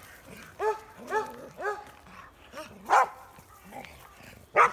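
Pet dogs barking and yipping excitedly: a run of three short, high yips about a second in, then two sharper, louder barks, one in the middle and one near the end.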